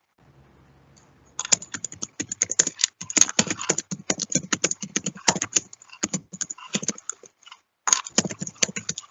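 Typing on a computer keyboard: quick, irregular keystrokes starting about a second and a half in, with a brief pause near the end.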